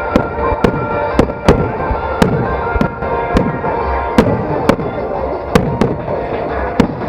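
Aerial fireworks bursting in a rapid, irregular series of about a dozen sharp bangs, with music playing underneath.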